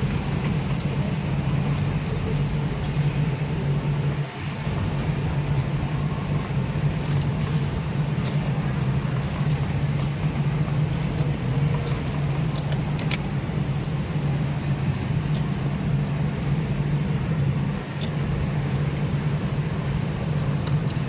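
Industrial sewing machines running together in a garment workshop: a steady low machine hum with scattered light clicks, dipping briefly twice.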